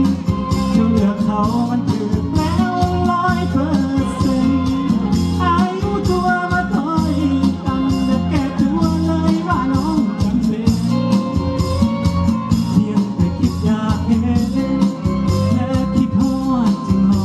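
Live band music: a steady bass line and drum beats under a singing voice.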